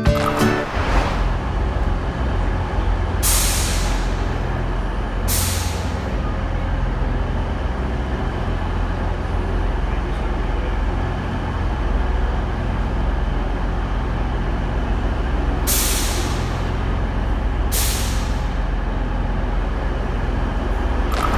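Diesel train engine idling steadily with a low drone, with four short, sharp hisses of released air, two close together a few seconds in and two more near the end.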